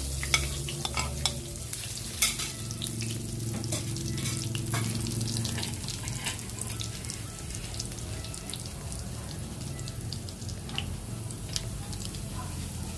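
Whole spices (cinnamon stick, star anise, cumin, fennel and coriander seeds) sizzling in hot oil in a wok. Sharp crackles and pops come thickest in the first few seconds, the loudest about two seconds in, then settle to a steady fry.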